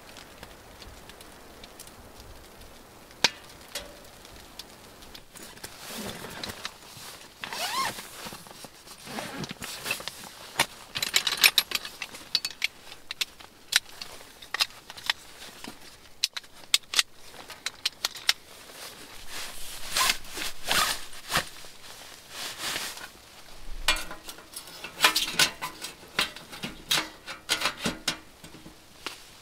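Irregular rustling, clicks and light clinks of things being handled, coming in clusters.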